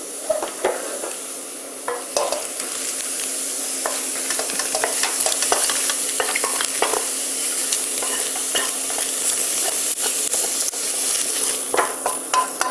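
Hot stir-fried soybean sprouts sizzling while a metal spatula stirs and scrapes them, with many short clinks and scrapes over a steady hiss that grows louder about two seconds in.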